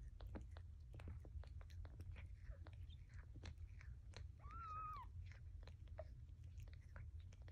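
Mother cat licking her newborn kitten clean, a run of small wet clicking mouth sounds. About four and a half seconds in, the newborn kitten gives one short mew that rises and falls.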